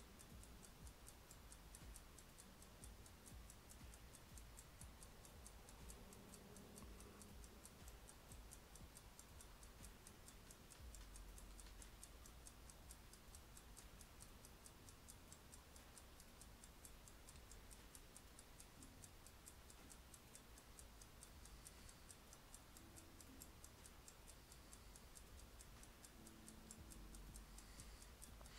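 Near silence: faint room tone with a steady, regular ticking.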